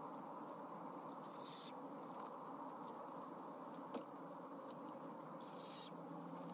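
Great horned owlet giving two short raspy screeches about four seconds apart, the begging call of a young owl beside a parent with prey, over a steady hiss; a single faint tap about four seconds in.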